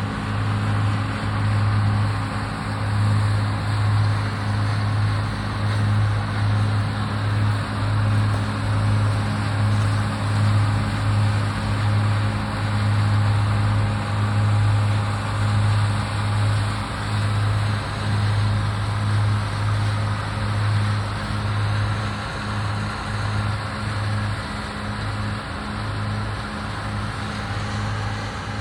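Combine harvester running steadily while cutting soybeans: a continuous low engine hum with a slight pulsing waver.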